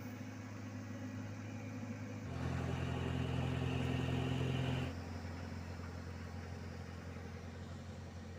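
Diesel engines of road-paving machinery running steadily. The sound jumps louder and fuller from about two seconds in until about five seconds in, then drops back just as suddenly.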